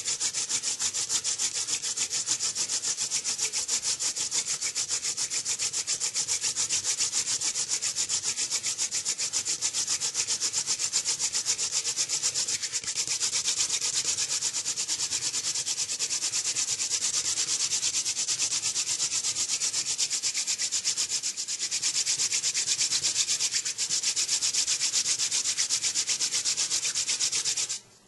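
Hand-drill spindle spun fast between the palms, its tip grinding into a goldenrod gall hearth: a steady, even, dry rasping that cuts off abruptly at the very end. This is friction-fire drilling, grinding out hot dust that forms a coal.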